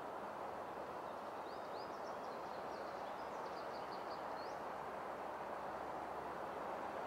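A small songbird sings a quick run of high chirps and trills from about one and a half to four and a half seconds in, over a steady outdoor hiss.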